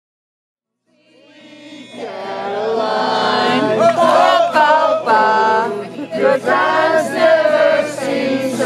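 Several voices singing together, fading in after about a second of silence.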